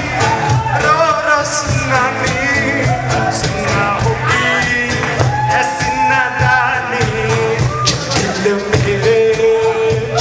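Live acoustic pop song: a man singing over strummed acoustic guitar and a steady cajon beat.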